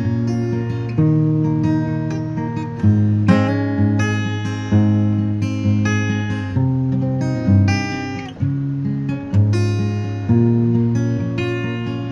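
Background music: acoustic guitar, strummed chords with a strong attack about once a second.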